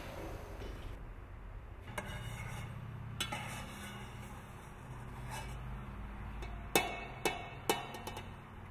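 Metal slotted spoon clinking and scraping against enamel pots while scooping soft lumps of fat from one pot to another, with three sharp knocks near the end. A steady low hum runs underneath.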